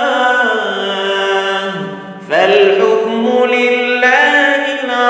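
A male reciter chanting the Quran in slow, melodic murattal style, holding long drawn-out notes. About two seconds in he breaks off for a short breath, then starts a new phrase.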